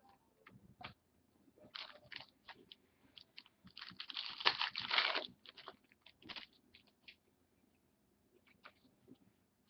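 Trading cards being handled: scattered clicks and slides of card stock, with a dense stretch of rustling and crinkling about halfway through.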